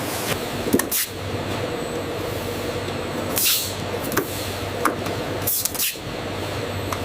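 Steady factory machinery hum with a few short clicks and brief hisses.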